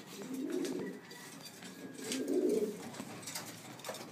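Domestic pigeons cooing: two low, rolling coos, one near the start and one about two seconds in, with a few light clicks between them.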